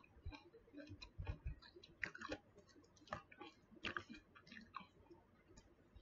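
Metal fork stirring pomelo segments in a plastic food container: faint, irregular clicks and taps of the fork against the container, a few a second, with small scrapes between them.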